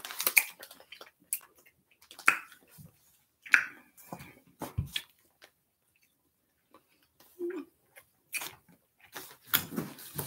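Scattered small handling and mouth noises: a clear plastic candy bag of sour rainbow belts crinkling as it is handled, along with chewing. A few short, sharp sounds come a couple of seconds in, and there is a brief lull around the middle.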